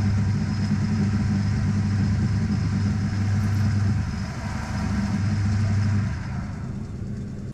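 Metal lathe running while a twist drill bores lengthwise into a solid steel rod: a steady low motor hum under the hiss of cutting. The hum drops away about six seconds in, leaving a quieter whir.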